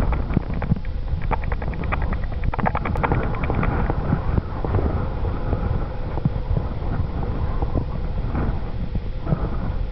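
ST44 (Soviet-built M62 'Gagarin') diesel locomotive's two-stroke V12 engine running steadily as it hauls a loaded freight train, with a run of rapid ticking a second or so in. Wind buffets the microphone.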